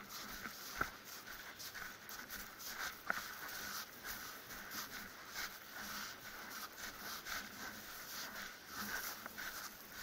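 Footsteps crunching on loose volcanic cinder in an irregular walking rhythm, over a steady hiss.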